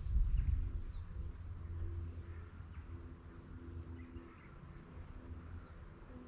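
Outdoor lakeside ambience: a few faint bird chirps over an irregular low rumble that is loudest in the first second and then eases off.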